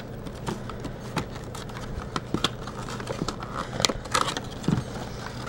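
Cardboard box and paper packaging being handled: irregular light taps, clicks and rustles as a brush-set box is lifted from a shipping box, the loudest knocks a little before four seconds in.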